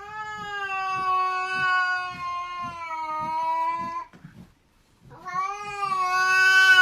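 A cat yowling in two long, drawn-out calls. The first lasts about four seconds and sags slightly in pitch at the end; the second starts about five seconds in.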